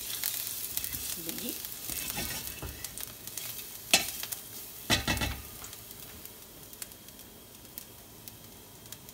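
Grated garlic and chili pepper sizzling in olive oil in a stainless steel sauté pan while a silicone spatula stirs them. There are a couple of sharp knocks about four and five seconds in, and then the sizzle fades to a faint hiss.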